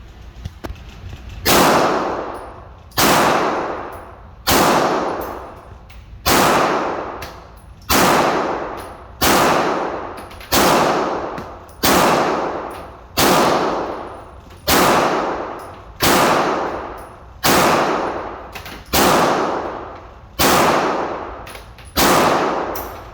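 Handgun shots fired one at a time at a slow, even pace, about one every second and a half, roughly fifteen in all. Each shot is followed by a long echoing decay.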